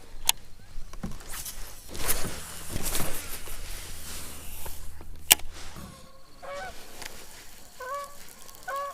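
Geese honking several times in short calls in the second half, after a couple of sharp knocks and some rustling in the first half.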